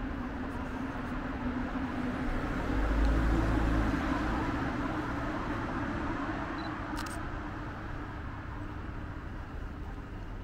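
A vehicle passing by on the street, its rumble and tyre noise swelling to loudest about three seconds in, then slowly fading away.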